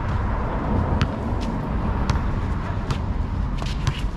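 Outdoor basketball court ambience: a steady low rumble with a handful of sharp taps and scuffs from players' sneakers and the ball on the asphalt.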